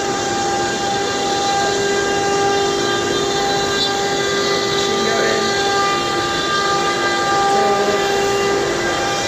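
CNC router cutting a wooden panel: the spindle gives a steady whine of several held tones over a rushing noise.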